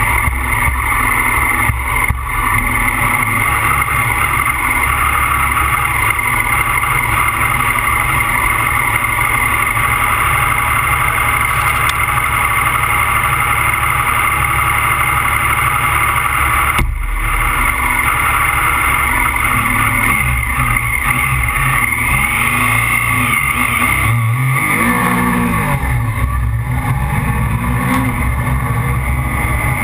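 Rally car engine heard from an onboard camera, running at a steady loud note while the car stands, with one sharp bang about 17 seconds in. Around 24 seconds in the revs rise and fall as the car pulls away, then it accelerates hard.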